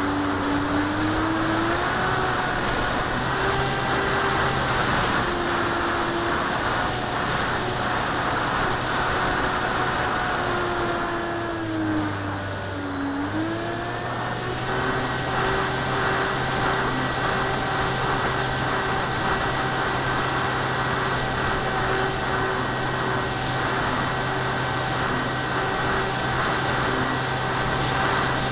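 Electric motor and propeller of a ParkZone Icon A5 RC plane whining through its onboard camera over a rush of wind. The pitch drops off about twelve seconds in as the throttle eases, then climbs back and holds steady.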